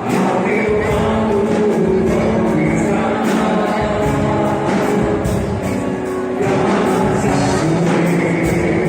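Music: a song with a singing voice and a steady beat.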